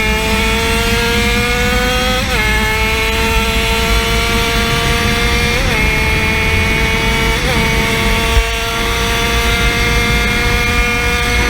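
A 50cc engine running hard at full power, its high pitch held steady and slowly climbing, with three brief dips in pitch, over a steady low rumble.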